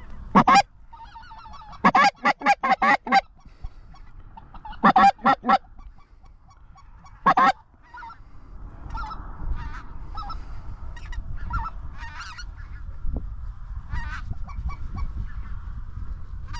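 Snow goose calling: loud, close honks in quick runs during the first eight seconds, then a fainter, continuous chorus of many geese calling from the flock circling overhead. A low rumble runs under the chorus in the second half.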